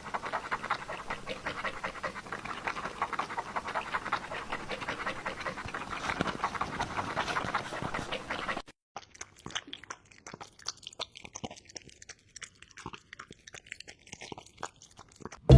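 A cat lapping milk: a fast, steady run of small wet clicks. After a cut about nine seconds in, a fainter, sparser run of lapping follows.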